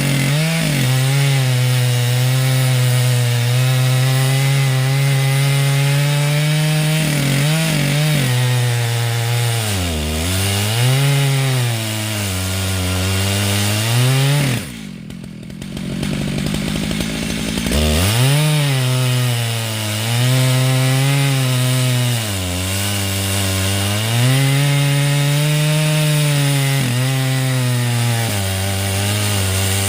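Stihl MS881 two-stroke chainsaw at full throttle ripping along a Douglas fir log in a chainsaw mill, its engine pitch sagging under load and recovering several times. About halfway through it drops to idle for a few seconds, then throttles back up and carries on cutting.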